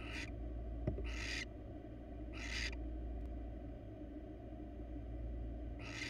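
Barn owl giving short, harsh hissing calls, four of them spaced one to three seconds apart, with a single click just before the second, over a steady low hum.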